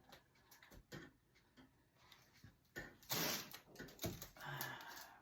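Faint small clicks and two brief rustling bursts from working on a scalded chicken carcass: wet feathers being pulled and snipped off with scissors.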